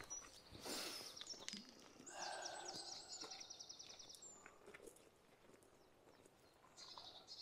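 Faint songbird singing: a rapid high trill lasting about two seconds, starting about two seconds in, and a shorter high phrase near the end, over quiet outdoor background.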